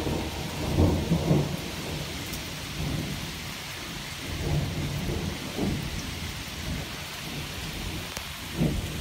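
Thunderstorm: steady rain with rolling thunder rumbling through it, swelling loudest about a second in and again near the end.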